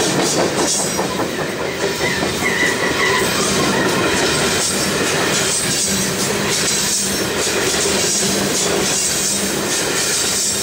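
Heavy loaded freight gondola cars rolling past: a steady rumble of steel wheels on rail with clickety-clack over the joints, and a faint, brief wheel squeal about two seconds in.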